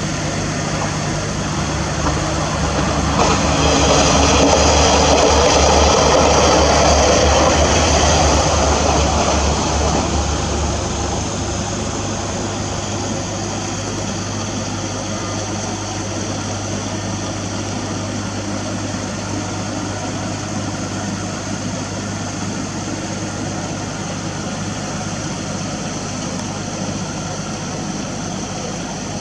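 A farm tractor's engine running steadily while a train passes close by: the sound swells to a loud rumble about three seconds in, holds for several seconds, and fades by about ten seconds, leaving the steady engine drone.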